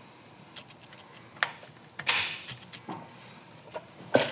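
Scattered light metallic clicks and clinks of a motorcycle shifter arm and linkage parts being handled and fitted by hand, with a brief scrape about two seconds in and the loudest clink near the end.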